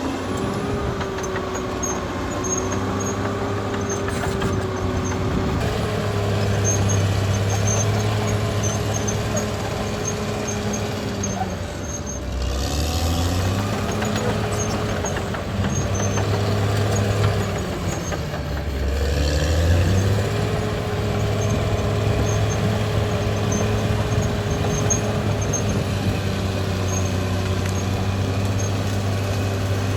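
Caterpillar D6R XL bulldozer's diesel engine running steadily under load. Its pitch drops briefly and climbs back twice, about twelve and nineteen seconds in.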